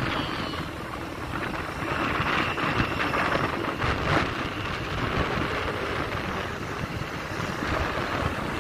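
Wind buffeting the microphone of a moving motorbike, with a steady rumble of engine and road noise underneath.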